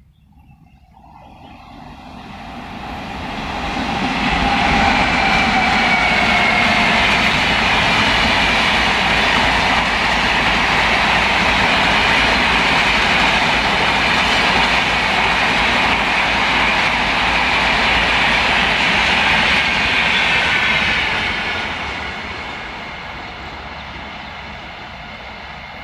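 Train passing at speed on the rails. The rumble builds over the first few seconds, holds loud, then fades away after about twenty seconds.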